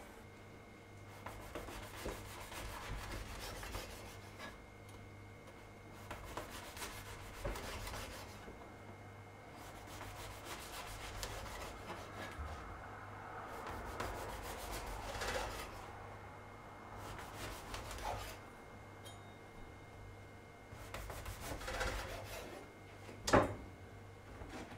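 Kitchen knife sawing through a crusty baguette on a plastic cutting board: repeated rasping strokes as the blade cuts the crust, in short runs with pauses between slices. A single sharp knock near the end.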